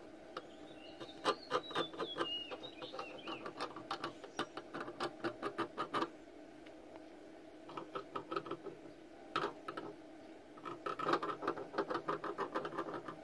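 Hot tip of a plastic-welding iron scraping and tapping along a welded seam in a plastic refrigerator shelf, a rapid run of short scratches as the melted plastic is smoothed, with a short pause about halfway through.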